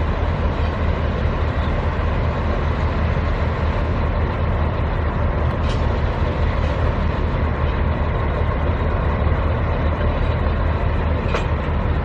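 Steady low rumble of street traffic, even and unbroken throughout.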